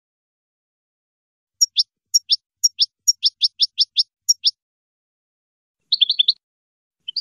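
European goldfinch singing: a run of short, sharp high notes, about four a second, starting about a second and a half in, then a quick cluster of notes about six seconds in.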